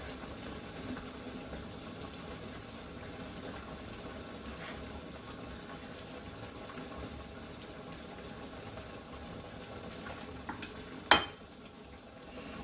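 Pot of meat and tomato sauce simmering and bubbling steadily on the hob. A single sharp knock about eleven seconds in is the loudest sound.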